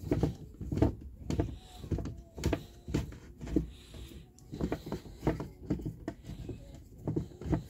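Wooden chair leg being screwed by hand into a threaded insert in the seat: a run of short knocks and clicks, about two a second, as the leg is turned, with a few faint squeaks.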